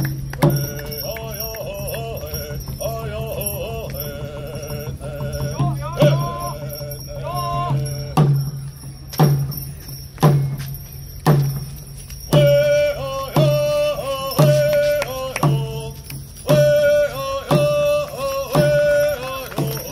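Native American hoop dance song: a singing voice over a drum. From about six seconds in the drum strikes hard and evenly, about once a second, while the singing rises to long held notes.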